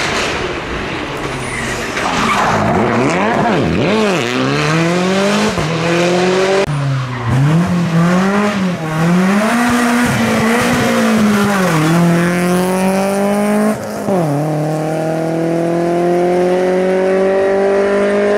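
Rally car engines at full throttle, the revs rising and falling repeatedly through lifts and gear changes, then a BMW E36 3 Series saloon accelerating hard away in one long, steadily rising pull near the end.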